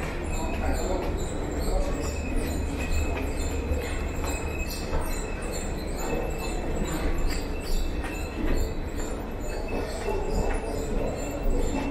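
A metro train running in the station, a steady rumble with a thin high wheel squeal, under footsteps climbing stone stairs.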